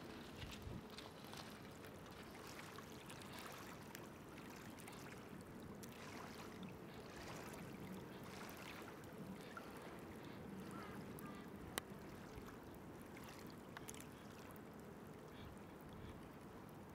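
Faint water lapping and trickling against a pebble foreshore, with scattered small ticks and one sharp click about twelve seconds in.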